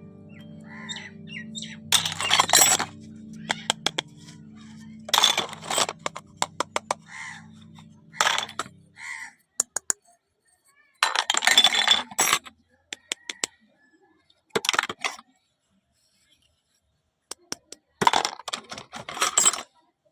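Packaging being handled and opened: repeated short spells of rustling and crinkling, with many sharp clicks and clinks between them. Soft background music plays under the first half and stops about nine seconds in.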